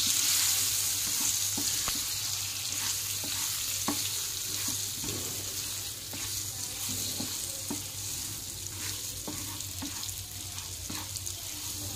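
Amla (Indian gooseberry) pieces and spices sizzling in hot mustard oil while being stirred with a wooden spatula, with scattered light knocks and scrapes of the spatula against the pan. The sizzle slowly gets quieter.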